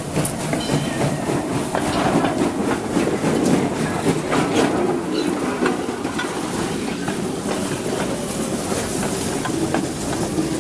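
Steam locomotive dressed as Thomas the Tank Engine passing close by, steam hissing out around its driving wheels, then its wooden coaches rolling past with many sharp clicks of wheels on the rails.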